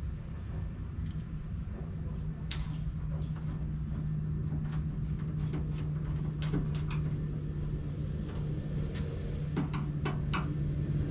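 Scattered small clicks and taps of a hand screwdriver and plastic parts as a hood protector's screws are worked into the front edge of a truck hood, over a steady low hum.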